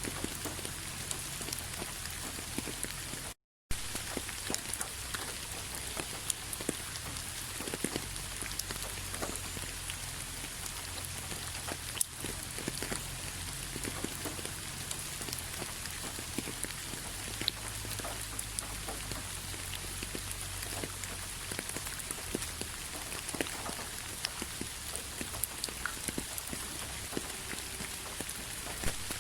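Rain falling steadily, an even hiss with irregular individual drops tapping sharply on a surface. The sound cuts out completely for a moment about three and a half seconds in.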